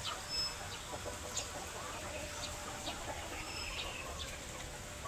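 A flock of chickens clucking, with many short high calls scattered throughout and a couple of brief held high notes.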